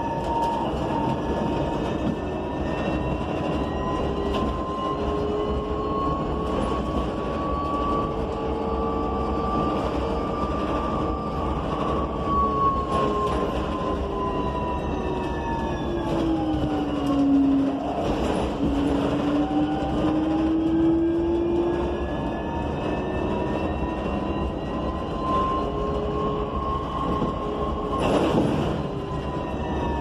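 BYD K9M battery-electric bus's two TYC-150A in-wheel hub motors whining as it drives. The pitch of the whine falls as the bus slows a little past halfway, climbs again as it speeds up, and drops once more near the end. Underneath are a steady road rumble and occasional rattles.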